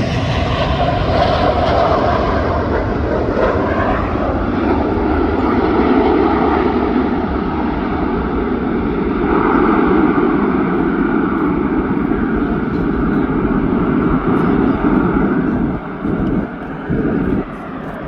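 BAE Hawk T1 jets taking off in succession, the loud noise of their Rolls-Royce Turbomeca Adour turbofans growing duller as they climb away, with brief dips in level near the end.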